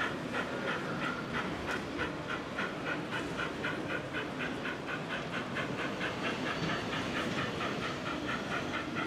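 O gauge model steam locomotive chuffing as it runs, an even beat of short hissy exhaust puffs, about three to four a second and quickening slightly, over the rumble of the train on the track.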